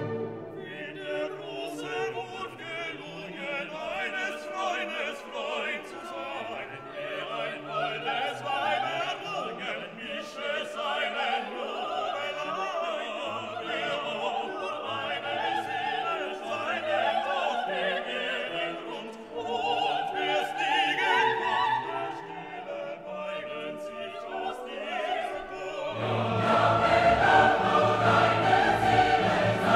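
Classical vocal music: operatic singing with a choir over an orchestra. It grows louder and fuller, with deep bass coming in, about 26 seconds in.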